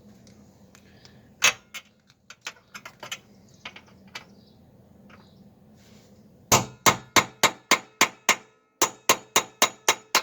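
Hammer striking metal, tapping at a shear bolt. One hard blow about a second and a half in is followed by a few lighter taps, then two quick runs of ringing strikes at about four a second with a short pause between them.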